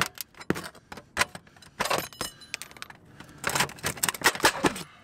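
Flat steel pry bar scraping and clinking against roofing nails and asphalt shingles as the nails are worked loose, in irregular bursts of sharp scrapes and clicks, with the busiest runs about two seconds in and again from about three and a half seconds in.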